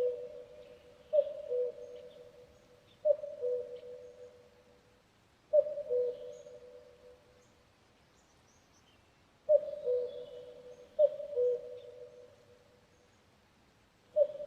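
Cuckoo calling its two-note 'cuck-oo', a higher note dropping to a lower one, repeated about six times at uneven gaps, with a longer pause in the middle. Faint chirps of other birds sound between the calls.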